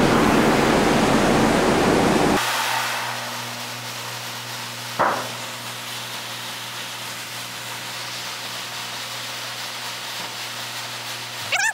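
Shelled corn pouring from an overhead holding bin into a grain trailer: a loud, even rush that stops abruptly about two seconds in. What remains is a quieter steady hum, with a single knock near the middle.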